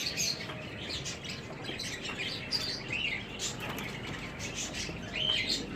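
Birds chirping: a steady stream of short high calls, with a louder arched call about three seconds in and again near the end.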